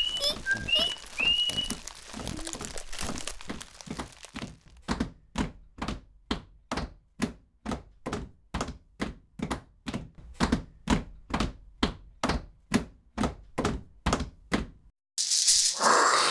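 A steady run of hollow knocks, about two and a half a second, lasting some ten seconds. It is busier and mixed with a few whistled notes at the start, then stops briefly, and a shaker-like rattle comes in near the end.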